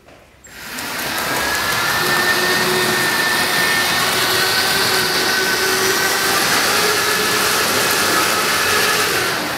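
A model locomotive's electric motor and wheels running along the layout's track: a loud, steady whirring noise with a faint hum in it, building up over the first second and fading near the end.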